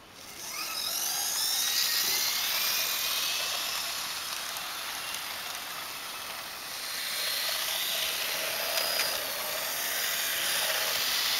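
HO scale GP-38 model locomotive's small electric motor whining and its wheels running on the track as the freight train moves off. The whine rises in pitch over the first couple of seconds as it picks up speed, then runs on steadily.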